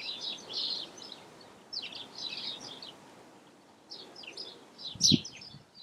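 Small birds chirping and twittering in short bouts of quick high notes. A brief low thump about five seconds in is the loudest sound.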